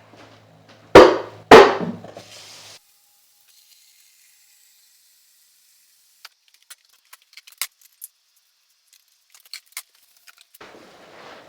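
Two loud knocks of a stockpot being handled, about a second in and half a second apart, each ringing briefly, followed by a short hiss and, later, a few faint light clicks.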